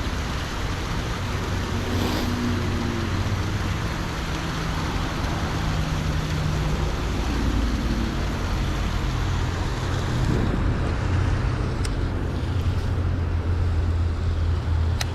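Steady highway traffic noise from the road bridge overhead: a continuous rush with the low drone of passing vehicles, rising a little about ten seconds in.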